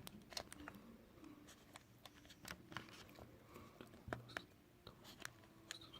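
Faint, scattered small clicks and light scraping as small parts of an opened smartphone are handled and worked on by hand.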